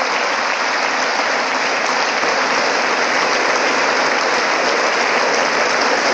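Large crowd applauding steadily, many hands clapping at once.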